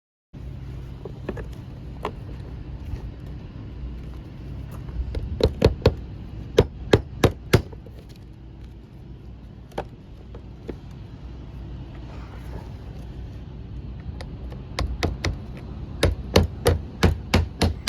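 Hammer driving roofing nails through rubber shingles: a run of quick blows about five seconds in and another near the end, with a few single knocks between, over a steady low rumble.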